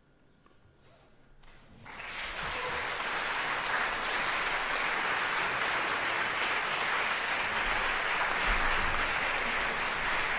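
Near silence for about two seconds, then audience applause breaks out suddenly and continues steadily.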